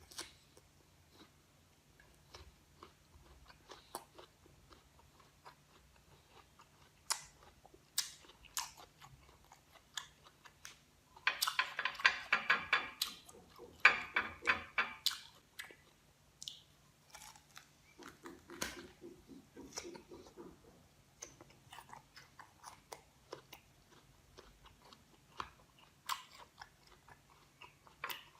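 Close-up crunching bites and chewing of firm green guava: scattered crisp clicks throughout, with two dense bouts of crunching about halfway in.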